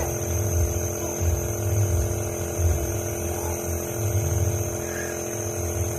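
Small compressor nebulizer (inhalation machine) running with a steady motor hum and a low pulsing throb.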